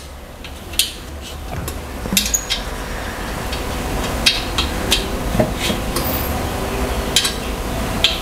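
Light metallic clicks and clinks as a metal dining-chair frame and its screws are handled and the screws are fitted into a corner joint by hand, about eight sharp ticks scattered through, over a low steady hum.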